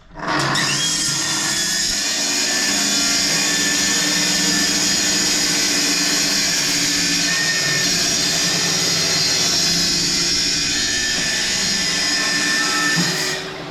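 An electric saw and its connected vacuum dust extractor running steadily for about thirteen seconds. The saw winds down near the end while the extractor keeps running.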